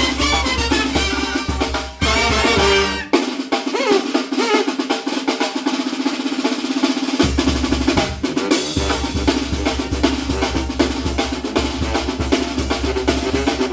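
Mexican banda playing an instrumental abajeño, led by snare drum and brass. About three seconds in the bass drops out, leaving the snare and the higher instruments, and it comes back in about seven seconds in.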